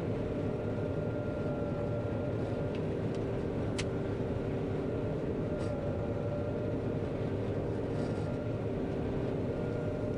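Steady drone of a John Deere 9500 combine heard from inside its cab while it harvests soybeans, with a few faint ticks and one sharper tick about four seconds in.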